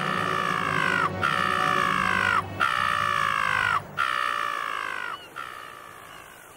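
Cartoon cockatoo calling: four long cries one after another, each falling in pitch, then a fainter fifth.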